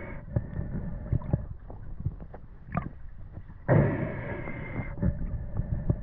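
Muffled handling noise picked up by a camera in the water while a diver wrestles a speared greenling off the spear shaft: a low rumble with scattered knocks and clicks, and a rush of noise lasting about a second, about four seconds in.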